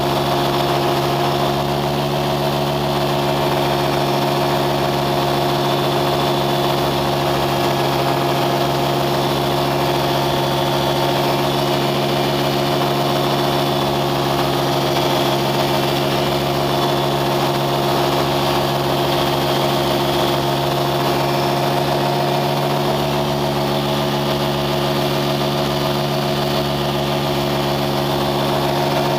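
An engine running at a constant speed, a loud, steady drone whose pitch does not change.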